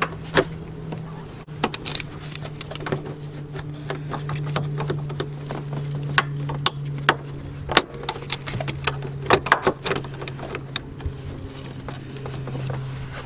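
Ordinary pliers clicking and scraping on a spring hose clamp as it is worked loose on a rubber radiator hose: a long string of irregular, sharp metal clicks. A steady low hum runs underneath.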